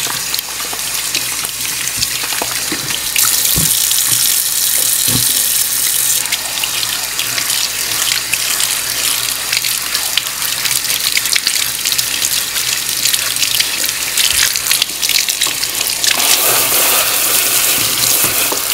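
Kitchen tap water running through a fine-mesh strainer and splashing into the sink, rinsing out blended smoothie pulp. The splashing gets harsher for a few seconds about three seconds in and again near the end.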